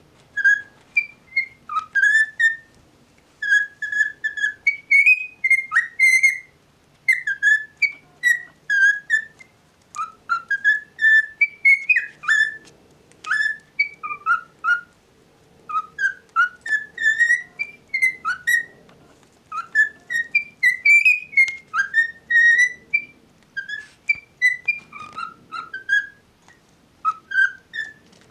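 Male cockatiel whistling its song: a long string of short, clear whistled notes, many sliding up or down, in phrases of a few seconds separated by brief pauses.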